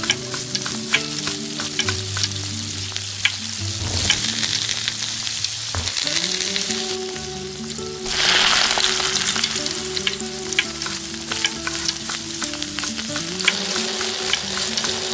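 Small clicks and taps of miniature cooking, a tiny egg broken over a bowl of chopped vegetables, then a tiny metal whisk beating the mixture, over a steady hiss. A louder burst of scratchy noise comes about eight seconds in, while the whisk is working. A soft background melody runs underneath.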